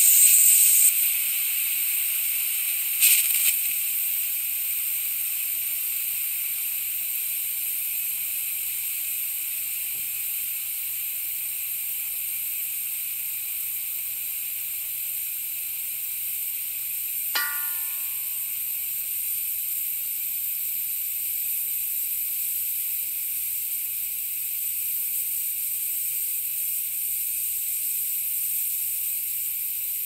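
Compressed air leaking slowly from an air tank: a steady high hiss, louder for the first second, with a brief surge about three seconds in.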